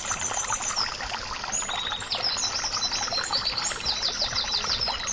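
Birds chirping in quick runs of high trills over a steady background of trickling water.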